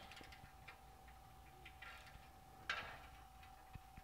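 Near silence: a faint steady whine with a few scattered faint clicks, one a little more distinct about two-thirds of the way through.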